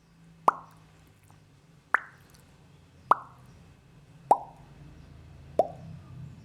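Pop sound effect: five short, hollow pops about a second and a quarter apart, each with a brief pitched ring, the last three each lower in pitch than the one before, over a faint low hum.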